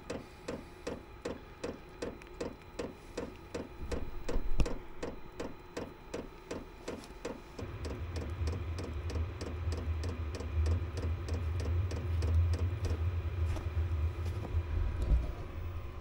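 Chinese-style diesel air heater starting up: the fuel dosing pump ticks about three times a second over the blower fan's whir. From about eight seconds in a low rumble joins as the burner ignites. A low thump about four seconds in.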